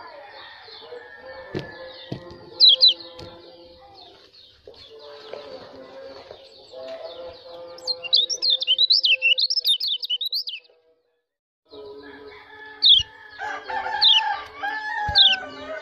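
Caged white-eye (pleci) giving 'ciakan' calls: sharp, steeply falling high chips, singly and in quick clusters, with a rapid high warbling run about eight seconds in. The sound drops out for about a second just before the twelfth second, then the chips resume.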